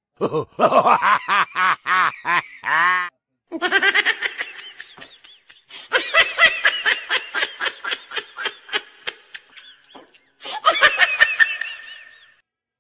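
High-pitched laughter in three bouts of quick, repeated giggles, the first with slower separate pulses and a short burst near the end.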